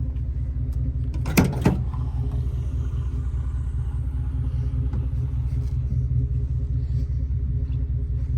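Pickup truck engine idling steadily with a low hum, with two sharp ringing knocks about a second and a half in.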